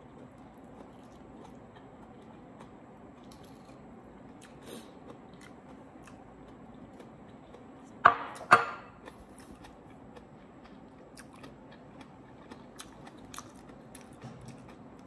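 Quiet chewing of a mouthful of food, with faint small clicks from a metal fork. A little past the middle come two short loud sounds about half a second apart.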